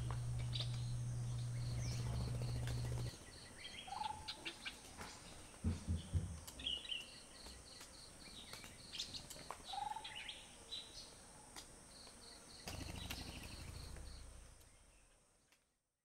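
Forest ambience: a few short bird calls scattered over a steady high insect whine and a regular high-pitched pulsing, with a low rumble in the first three seconds and again near the end, fading out at the very end.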